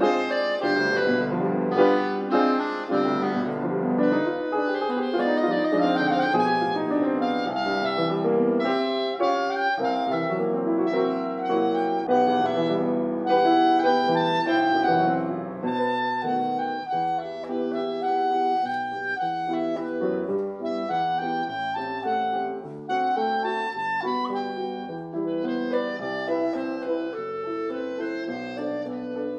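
Clarinet in A and piano playing a classical sonata together, with continuous changing notes and no pauses.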